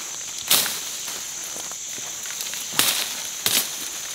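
Machete strokes chopping through brush and stems: three sharp cracks, one about half a second in and two close together near three seconds.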